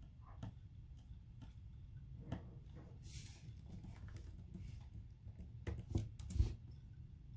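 A few scattered, isolated key presses on a Velocifire TKL78 mechanical keyboard with tactile Outemu Brown switches, with a brief soft noise about three seconds in and a short cluster of louder key clacks near the end.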